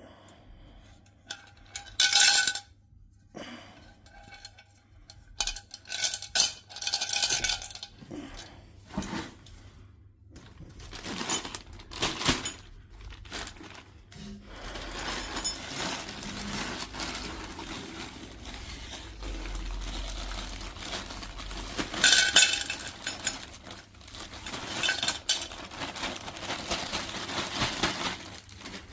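Small metal objects clinking and rattling in irregular bursts, several with a short bright ring. In the second half there is a longer stretch of rustling handling noise.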